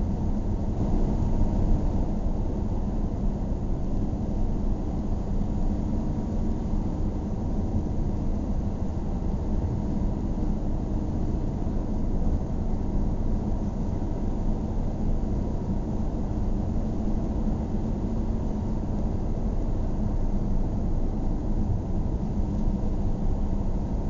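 A car being driven: steady engine and road noise, a low drone with a faint steady hum, unchanging throughout.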